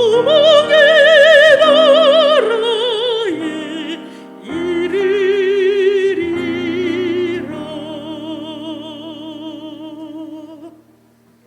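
A woman's classically trained solo voice singing the last phrases of a hymn in long held notes with wide vibrato over steady sustained accompaniment chords, the final note dying away near the end.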